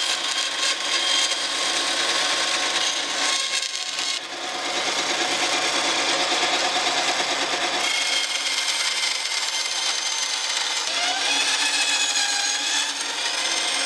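Benchtop bandsaw running and ripping a thin wooden strip lengthwise into trim, a steady blade-and-motor noise with the wood being cut. The sound eases briefly about three and a half seconds in, then the cut carries on.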